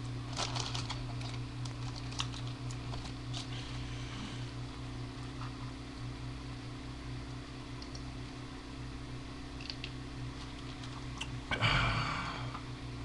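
Scattered light clicks of typing on a computer keyboard over a steady low hum, then a short, louder burst of noise about a second before the end.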